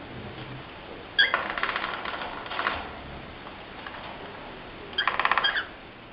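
Male cockatiel rapping his beak on a hard surface: two bursts of rapid woodpecker-like taps, the first starting about a second in and lasting over a second, the second short, near the end. Beak-tapping like this is typical of a male cockatiel.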